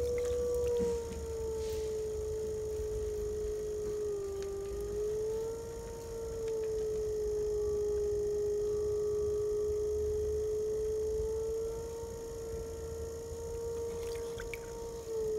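Electric potter's wheel motor whining at a steady pitch while clay is thrown on it. The pitch sags briefly about four seconds in and again near the end, over a low hum.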